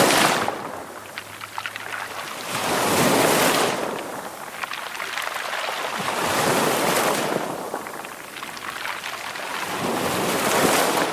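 Ocean waves breaking in turn, about every three to four seconds, each swelling into a hiss of surf and then ebbing. The first and loudest breaks right at the start.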